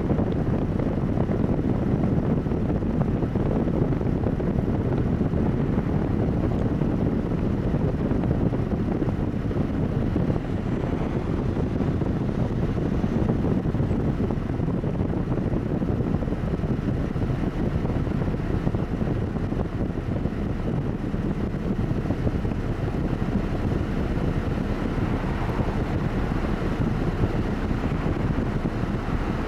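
Steady low rumble of road traffic, with wind buffeting the microphone.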